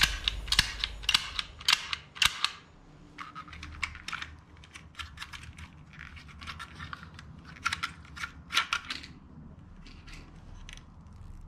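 Plastic toy cap-gun revolver clicking: a quick run of sharp clicks of its hammer and trigger in the first couple of seconds, then lighter clicks and rattles as its cylinder is swung out and the ring of caps is handled.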